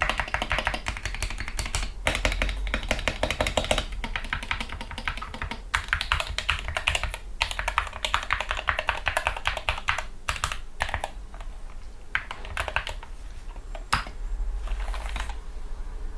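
Typing on a Gamakay MK61 keyboard with lubricated Gateron Yellow linear optical switches, PBT keycaps and foam dampening: fast runs of keystrokes with short pauses, thinning to scattered presses in the last few seconds.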